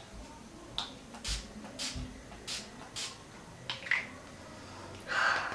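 Setting-spray pump bottle spritzing mist onto the face: about six short hisses, roughly half a second apart, with a longer, softer hiss near the end.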